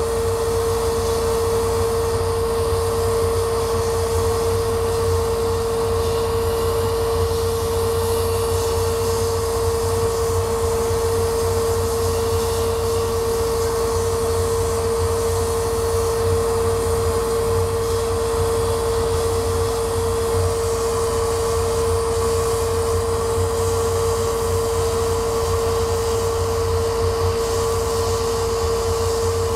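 Laser cutter running as it cuts a wooden map sheet: a steady rushing of the machine's fans and air with a constant hum.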